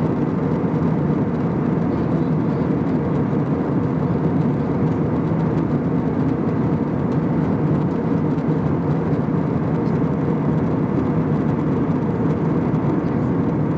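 Steady cabin noise inside an Airbus A321-200 at cruise altitude: a constant low drone of engine and airflow noise.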